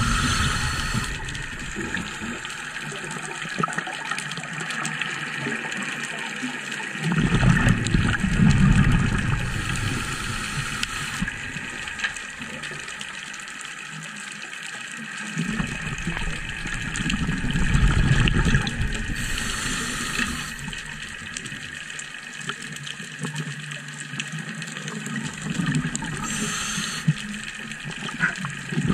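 Scuba diver breathing through a regulator, heard underwater: a bubbling exhalation about every nine seconds, each ending in a short high hiss.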